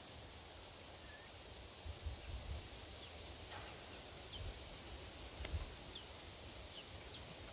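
Quiet outdoor ambience: a steady hiss with a handful of brief, faint, high bird chirps scattered through it, and a few soft low thumps.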